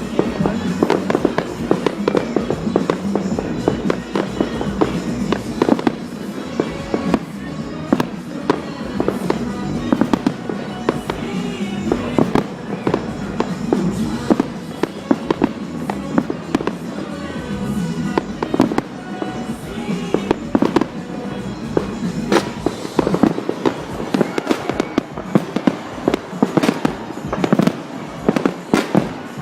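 Aerial fireworks exploding in quick succession, with many sharp bangs a few per second, over a steady background of music.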